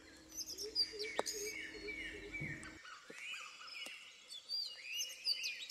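Several birds chirping and calling: a mix of short high chirps and repeated arching whistled notes.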